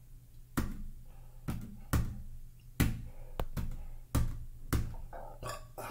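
Hard knocking: about nine sharp thumps at an uneven pace, roughly one every half second to a second.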